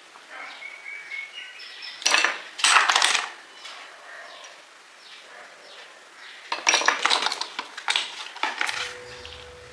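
Small hard plastic action-camera accessories clattering and clicking as they are handled and set down, in two bursts about two seconds in and about seven seconds in.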